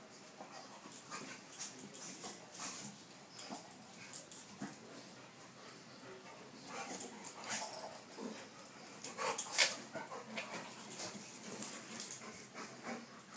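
Two dogs play-wrestling, with short dog vocal sounds and scuffling, louder for a few seconds past the middle.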